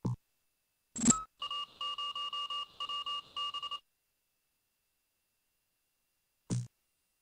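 Built-in cartoon sound effects of the Microsoft Agent character The Dot: a short swish about a second in as it changes shape, then about two and a half seconds of rapid electronic bleeps on a steady pitch, a signal sound for its satellite-dish shape. Another short swish comes near the end.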